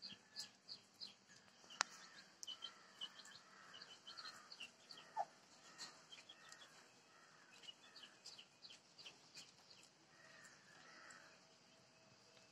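Faint chirping of small birds: many short, high chirps scattered irregularly, with one sharp click about two seconds in.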